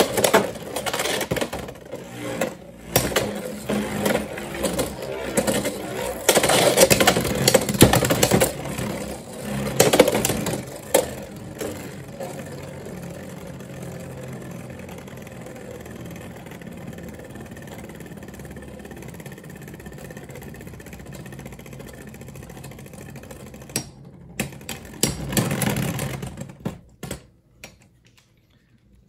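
Two Beyblade X spinning tops, Cobalt Drake 9-60P and Phoenix Rudder 9-70G, battling in a clear plastic stadium. For about the first twelve seconds there are rapid clacks of collisions and hits against the rail, then a steady whirr as both spin on. Near the end comes a last flurry of knocks as they wind down and come to rest.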